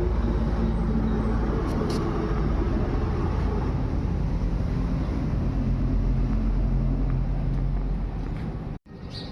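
An engine running steadily with a low hum and broad rushing noise. It cuts off abruptly near the end.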